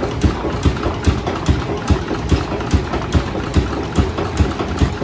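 A stationary engine running at a steady pace, with a regular knocking beat of about two and a half strokes a second.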